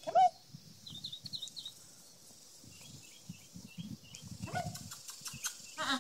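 Small birds chirping in the background over a run of soft low steps, broken by short high-pitched cries. The loudest cry comes right at the start, with weaker ones about four and a half seconds in and near the end.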